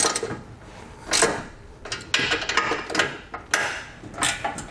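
Hand socket ratchet clicking in short, uneven runs as bolts are snugged loosely, metal on metal.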